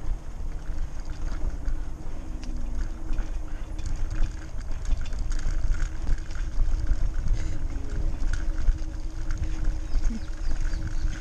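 A Lime rental bike being ridden over a rough park path: a steady rumble from the tyres and wind on the microphone, with frequent small rattles and clicks as the bike goes over bumps, and a faint steady hum underneath.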